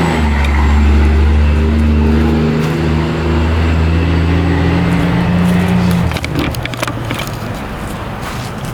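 A steady low motor drone that fades out about six seconds in, followed by a few light clicks and rattles.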